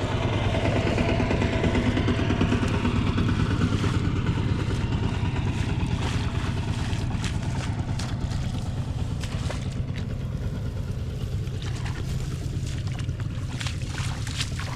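A small engine running steadily at an even speed, with a few sharp clicks near the end.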